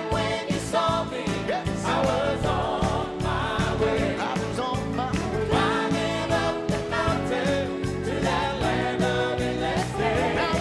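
Gospel choir singing with band accompaniment over a steady drum beat.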